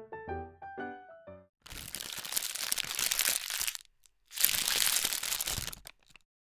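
Piano music ends about a second and a half in. Then come two stretches of loud crinkling, crackling noise, about two seconds and about a second and a half long, with a brief gap between.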